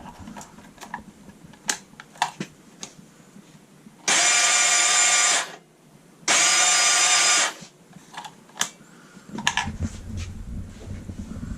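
Electric starter motor of a 2008 Honda TRX450ER quad run in two bursts of about a second and a half, a steady whir, with a few light clicks and knocks before. This fits the no-start symptom of a failed starter clutch gear, where the starter spins without turning the engine over.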